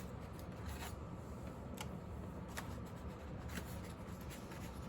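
Paper pamphlets and packaging being handled: soft rubbing and rustling with a few light taps, over a steady low hum.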